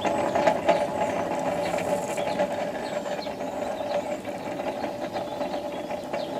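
Coal forge blower running with a steady whir, with scattered light ticks and crackles from the fire as the steel is held in it for tempering.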